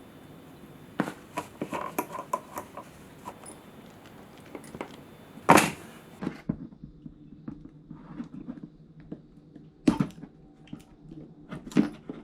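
Hand work on small parts: a run of light clicks and knocks, with a sharp knock about five and a half seconds in and two more near the end.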